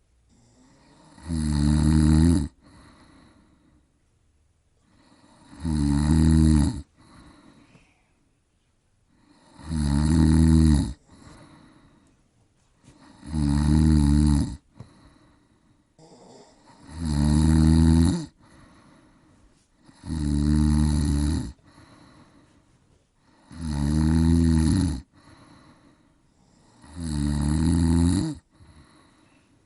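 A person snoring heavily: a loud snore about every four seconds, each lasting about a second, with much quieter breathing between.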